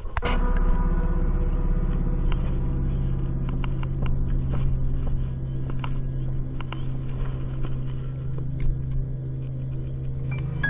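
A vehicle's engine running steadily, with irregular clicks and knocks from the vehicle rattling over rough ground.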